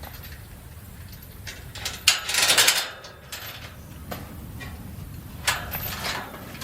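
A metal farm gate being handled, rattling and clanking in two bursts, about two seconds in and again near the end, with a few lighter clicks between them.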